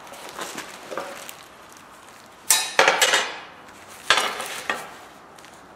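Metal L-square ruler clattering and clinking as it is handled and laid across a wooden stool seat: a quick run of sharp clanks about two and a half seconds in, then two more a little after four seconds.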